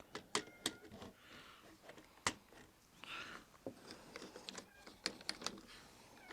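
Lego plastic pieces being handled and pressed together, giving irregular faint clicks and taps, the sharpest a little over two seconds in.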